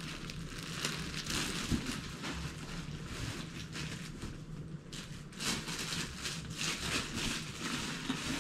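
Rustling and crinkling of a cloth drawstring bag and the packaging inside as it is opened and rummaged through, an irregular run of soft scrapes and crackles.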